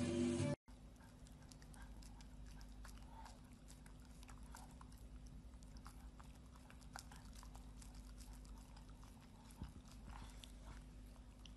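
A pug licking and chewing at a peeled banana: a faint, irregular run of small wet smacking and clicking mouth sounds over a low steady hum. Music plays for the first half-second, then stops abruptly.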